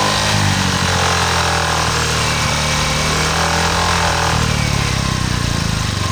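Honda Vario 125 scooter's single-cylinder engine running with a really loud growling rattle. The noise comes from the rear fender vibrating because its mounting bolt does not sit tight against it.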